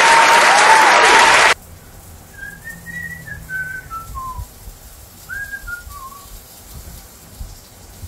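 A loud, noisy passage with a tune cuts off about a second and a half in. Then come two short runs of whistled notes, each stepping down in pitch.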